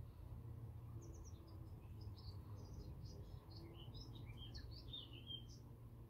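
A songbird singing a quick run of short, high, varied notes, starting about a second in and lasting about four seconds.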